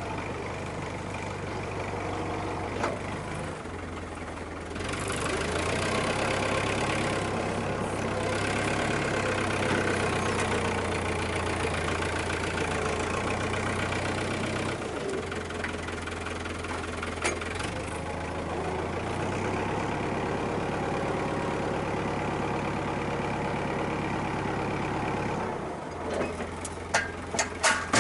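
Fiat 640 tractor's diesel engine running under changing load as it works manure with its loader: the engine gets louder about five seconds in and eases back near the end. A few sharp knocks come in the last seconds.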